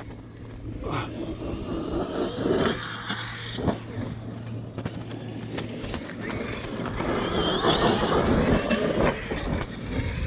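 Traxxas X-Maxx electric RC monster truck driving on the track: motor whine and tyre noise in two louder spells, with a sharp knock a little under four seconds in.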